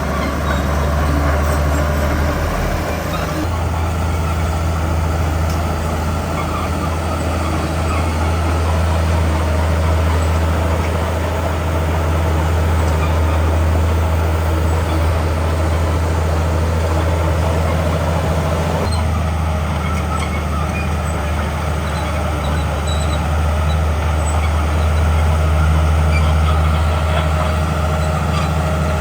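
Heavy diesel engine of earthmoving machinery running steadily under load, a deep, constant drone. The sound changes abruptly twice, once about three seconds in and again about two-thirds of the way through.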